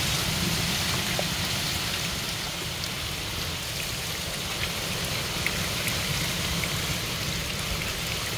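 Water splashing and trickling in a small rock pool as a hand stirs it, a steady watery wash with scattered small drips.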